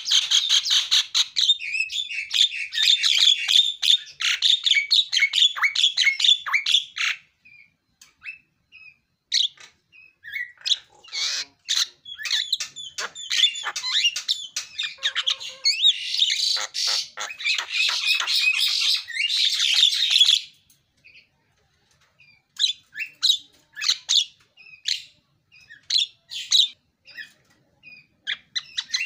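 Javan myna in full song: a loud, varied run of chattering notes, squawks and whistles packed with filler phrases. It comes in two long dense bursts with scattered single calls between and after them, and a brief pause about two-thirds of the way through.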